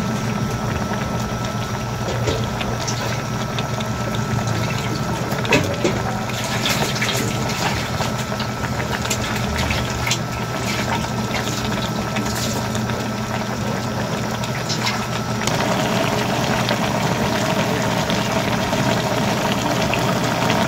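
Pork and pig intestines simmering in coconut milk in a wok, bubbling and popping steadily as the broth cooks down, over a steady low hum. The bubbling grows a little louder about fifteen seconds in.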